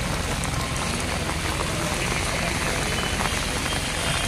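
Steady rain falling on a flooded street: an even hiss of rain on water with scattered drop ticks.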